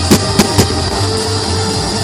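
Music playing, cut through near the start by three sharp bangs in quick succession, fireworks going off.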